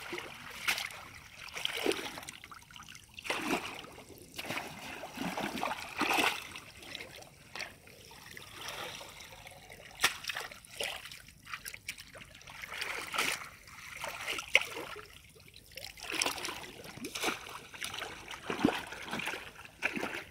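Shallow muddy water splashing and trickling in irregular bursts as hands and a woven bamboo basket are worked through it.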